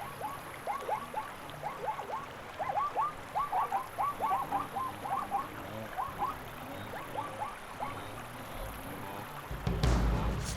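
Frogs calling: a run of short calls that rise and bend over, several a second, thinning out after about seven seconds. A low rumble comes in near the end.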